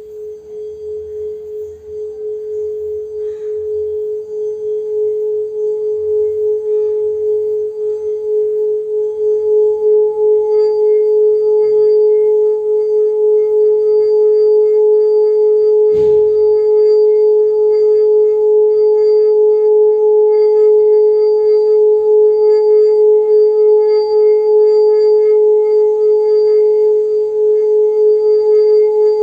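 Singing bowl sounding one steady, low tone with fainter ringing overtones. It swells over the first ten seconds or so, then holds with a slight rhythmic wavering. A single brief click comes about halfway through.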